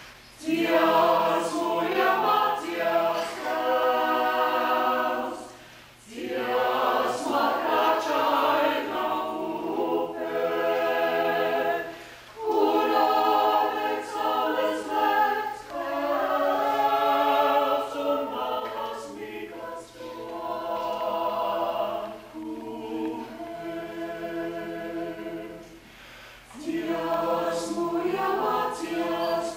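Mixed-voice vocal ensemble of about nine women and men singing a cappella, in phrases of a few seconds with short breaks between them. The singing starts about half a second in and is quieter for a stretch past the middle.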